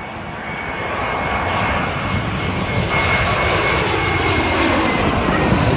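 Airbus A321-231 jet airliner on landing approach, passing low overhead at approach thrust with its gear down. The twin IAE V2500 turbofans grow steadily louder, with a steady high whine and a tone that drops in pitch as the jet goes over.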